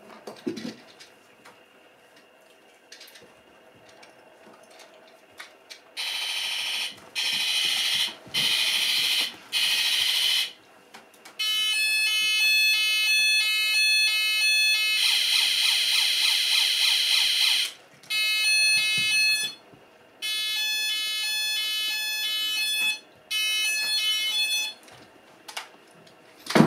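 Handheld electronic alarm sounding in loud spells: four short hissing blasts about six seconds in, then electronic alarm tones that step in pitch, a harsh pulsing buzz in the middle, and two more spells of alarm tones. A sharp knock comes at the very end.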